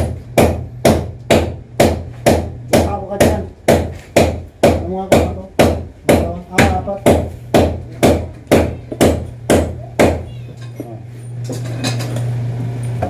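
A hammer striking steadily, about two blows a second, stopping about ten seconds in. A steady low hum runs underneath.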